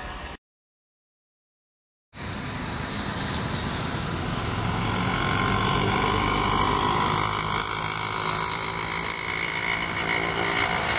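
About two seconds of dead silence at an edit, then WDM-class ALCo diesel locomotives idling at a platform, a steady low engine rumble mixed with crowd hubbub.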